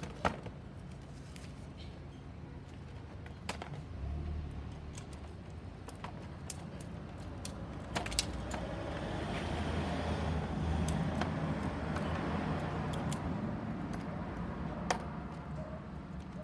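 Sharp metal clicks and rattling from the steel ratchet buckles of tie-down straps being worked and released on a strapped pack of wooden panels. A vehicle passes in the street, loudest about ten to twelve seconds in.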